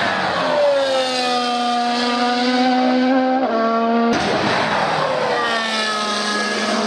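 2015 Formula 1 cars' 1.6-litre V6 turbo-hybrid engines running at high revs past the track: the note falls in pitch as a car goes by, then holds steady with a step in pitch about three and a half seconds in. The sound cuts off abruptly about four seconds in, and a second car passes with the same falling-then-steady note.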